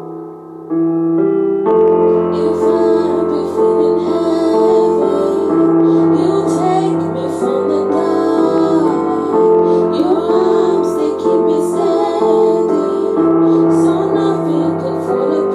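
Two girls' voices singing a harmony together over piano accompaniment, with held notes and gliding lines; the sound thins briefly near the start, then fills out again within the first two seconds.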